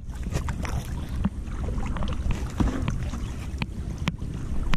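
Kayak paddling on calm water: scattered small splashes and knocks over a low wind rumble on the microphone.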